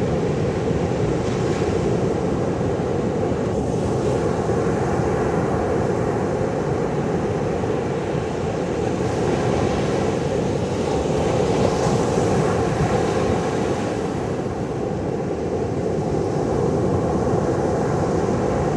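Ocean surf washing steadily, swelling and easing slowly every few seconds.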